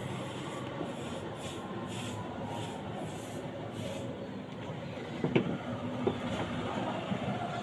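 Scratchy strokes of a painter working an exterior wall by hand, about three a second, over a steady background noise; the strokes stop about four seconds in, and a single knock follows a second later.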